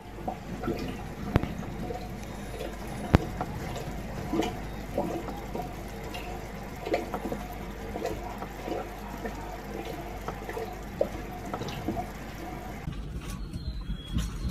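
Water sloshing in a home aquarium as the tank is shaken by an earthquake, with scattered knocks and rattles, two of them sharp in the first few seconds. Near the end the sound changes abruptly to a lower, rumbling background.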